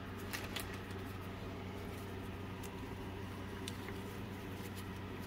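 Faint handling noise from gloved hands turning a small power-tool switch, with a few light clicks, over a steady low hum.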